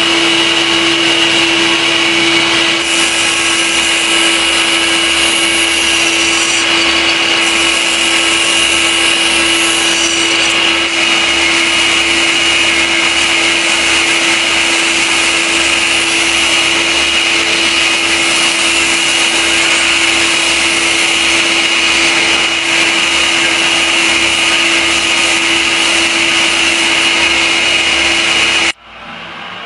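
Electric power tool running steadily with a constant whine and an abrasive hiss, working on a rusted knife blade, then stopping abruptly near the end.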